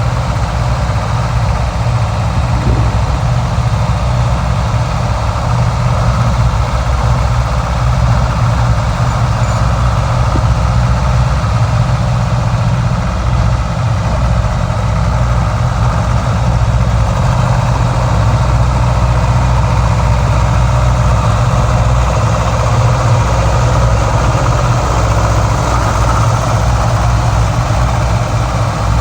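Deutz diesel engine of a Ditch Witch 2310 DD trencher running steadily, a low rumble that holds even throughout.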